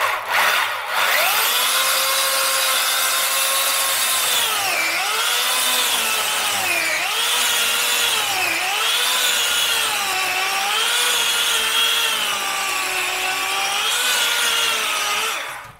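Makita electric chainsaw with a Champion chain, freshly sharpened with an angle grinder, cutting through a wet birch log. The motor's whine sags in pitch again and again as the chain bites into the wood and then recovers, and it stops near the end as the cut goes through.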